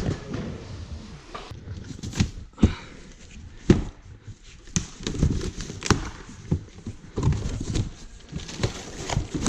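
Irregular knocks and clicks of parts and packaging being handled in a room, with a few sharper knocks near the middle.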